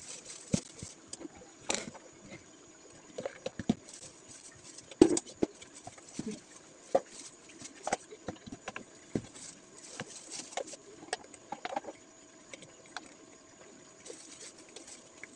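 Clear plastic cups being handled, crackling and clicking in short irregular bursts, with one louder knock about five seconds in.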